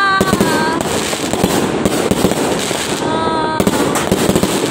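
Aerial fireworks going off continuously: a dense, rapid crackle of pops and bangs. Whistling notes sound through it near the start and again about three seconds in, each dipping slightly in pitch as it ends.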